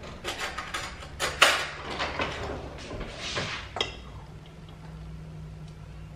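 Metal cutlery clinking and clattering as a kitchen utensil drawer is rummaged through and shut. There are several sharp clinks over the first four seconds, the loudest about a second and a half in, then only a low steady hum.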